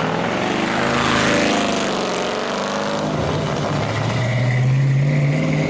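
Car engine revving hard as it accelerates away, its pitch climbing. A second, stronger rise builds over the last couple of seconds.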